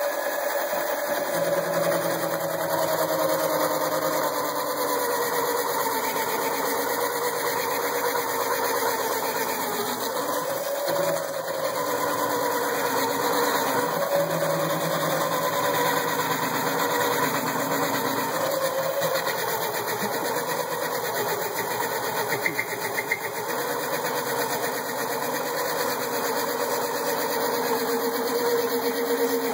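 Razor Pocket Rocket electric mini bike's motor and chain drive running flat out while its tyre spins and scrubs against a concrete floor in a burnout: a continuous whine whose pitch wavers up and down.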